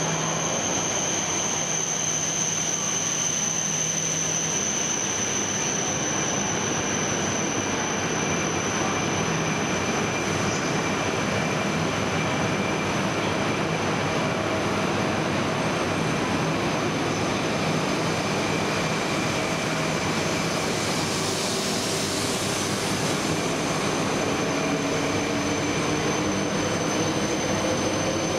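200 series Shinkansen train pulling out of a station platform, with a steady running noise of its equipment. In the last several seconds, hums rise in pitch as the train gathers speed.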